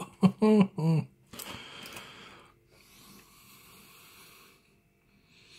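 A few untranscribed spoken syllables, then about a second of crinkling, scraping rustle from aluminium foil and a fork in a foil roasting tray. A fainter, thinner rustle follows for a couple of seconds before it goes quiet.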